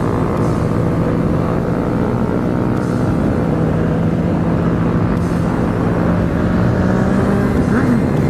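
Motorcycle engine running while riding, with wind noise on the microphone. The engine pitch climbs gradually as the bike speeds up, and there is a short rev near the end.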